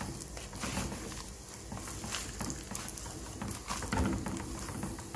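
Spatula stirring and tossing a crisp fried mix of mango pieces, onions and peanuts in a clay pot: irregular scraping with scattered light clicks and knocks of pieces against the pot.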